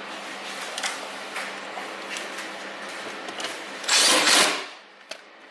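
Small power tool running with a steady motor hum, then a loud burst about four seconds in as it cuts into wood, stopping abruptly soon after.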